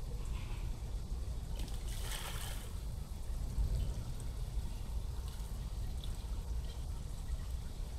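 Shallow pond water splashing and trickling as a shoebill bathes in it, with one brief louder splash about two seconds in, over a steady low rumble.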